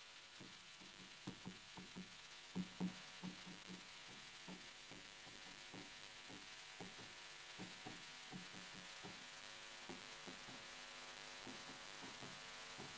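Faint, irregular taps and scrapes of a stylus on an interactive display screen during writing, with a few louder taps between about one and three seconds in.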